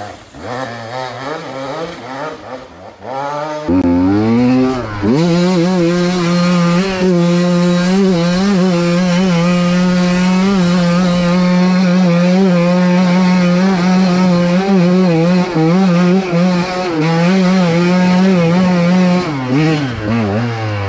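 Two-stroke enduro dirt bike engine revving up and down for a few seconds, then held at high, nearly steady revs with slight wavering for about fifteen seconds. The revs drop right at the end.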